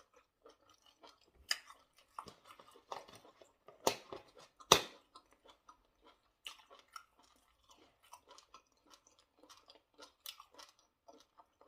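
Close-miked chewing and mouth sounds of a person eating pounded yam fufu with bitterleaf soup: a run of many short mouth clicks, with two louder sharp clicks about four and five seconds in.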